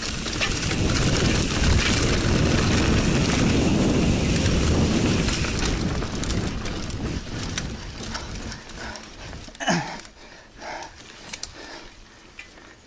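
Mountain bike running fast down a dirt trail: wind buffeting the mounted camera's microphone and tyres rumbling over the ground, loud for about six seconds, then easing to quieter rattling and clicks from the bike.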